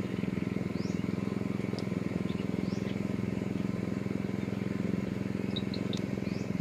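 A small engine running steadily at a constant speed: a low, even hum with a fast regular pulse.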